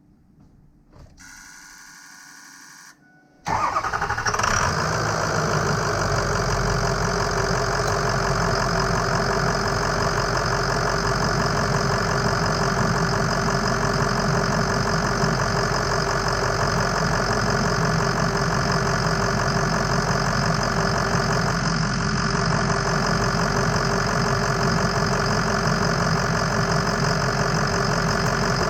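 Ford F-250 pickup engine being started: a brief whine, then the engine catches about three and a half seconds in and settles into a steady idle.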